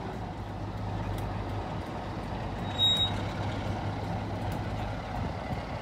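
Class 47 diesel locomotive's Sulzer V12 engine idling with a steady low drone. A short, high-pitched whistle sounds once about three seconds in.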